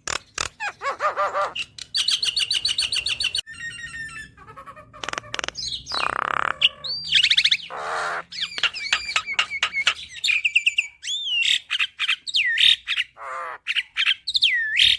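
Javan myna (jalak kebo) singing a fast, varied song of clicks, chattering notes, buzzy rattles and whistles that glide up and down.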